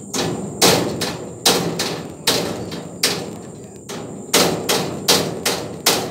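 A hammer striking the steel frame of a pig pen, about ten blows at an uneven pace of roughly one every half to one second, each ringing briefly.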